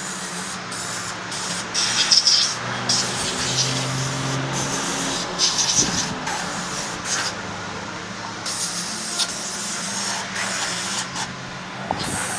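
Repeated bursts of compressed-air hiss, each a second or two long, over a steady low machine hum in a scooter workshop.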